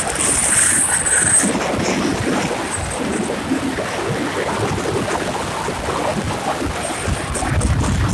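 Wind rushing and buffeting over the microphone of a moving vehicle, with a low road rumble underneath.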